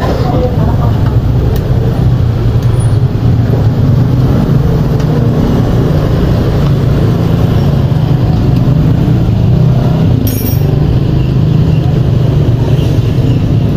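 A steady low engine drone, with traffic-like noise over it. A brief high click comes about ten seconds in.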